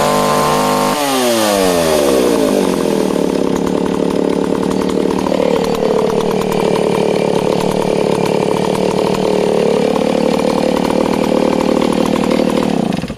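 Stihl S10 chainsaw's two-stroke engine running: the revs drop about a second in, then it runs steadily with two brief dips in pitch, and cuts off suddenly near the end.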